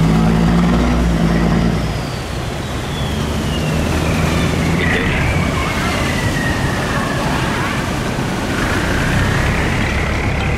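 Boat engines running steadily, louder for the first couple of seconds and then easing. A high whine glides down over a few seconds and then levels off.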